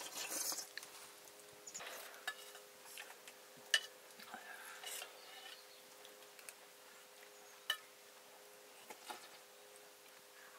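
Scattered clinks and scrapes of dishes and eating utensils during a meal, with two sharper clinks about four and eight seconds in. A faint steady hum runs behind.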